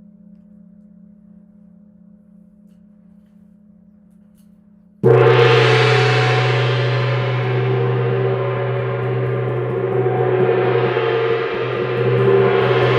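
Faint, steady ringing tones of a sound-bath bowl, then about five seconds in a loud strike on a large metal sound-healing instrument. It rings on with a rich, shimmering wash of overtones that fades slowly.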